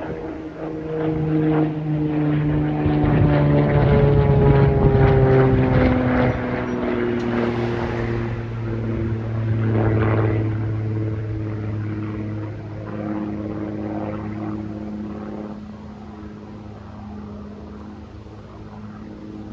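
Propeller airplane flying overhead. Its engine drone is loudest about four seconds in, drops in pitch as the plane passes, and fades away.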